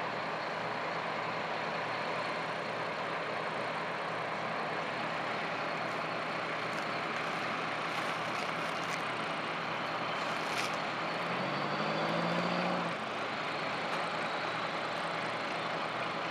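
Aircraft tow tractor's engine running steadily as it tows a jet across the apron. A short rising tone sounds about two-thirds of the way through.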